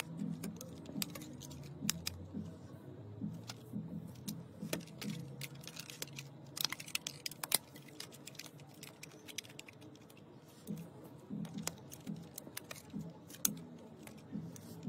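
Rubber bands being stretched and wrapped around a phone, snapping and tapping against its glass back and metal frame: a run of small irregular clicks, densest about seven seconds in.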